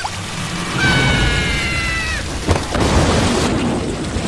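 Cartoon sound effects of water rushing in with a deep rumble. Over it, a high cartoon squeal is held for over a second and drops in pitch as it ends. A short knock comes about two and a half seconds in.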